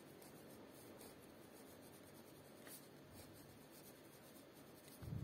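Faint scratching of a pen writing by hand on paper, with a soft low thump near the end.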